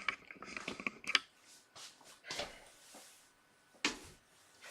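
Handling noise: a quick run of small clicks and rattles in the first second, then a few separate knocks spaced out, as a person moves things about.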